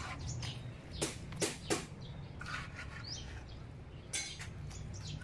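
Outdoor ambience at a building site: a few short sharp taps about a second in and again near the end, with faint bird chirps over a steady low hum.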